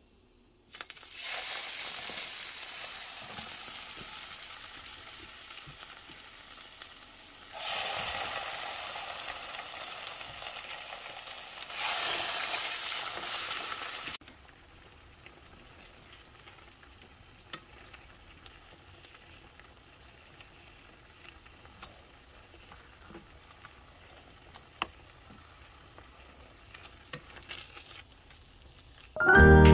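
Food sizzling in a frying pan, in three stretches that each start suddenly and then fade. The sizzling cuts off about halfway through. After it come only scattered faint clicks.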